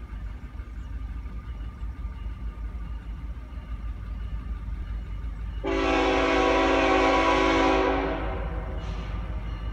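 Norfolk Southern diesel locomotive's air horn sounding one long blast of about two and a half seconds, starting a little past halfway, as the train approaches. A low steady rumble runs underneath.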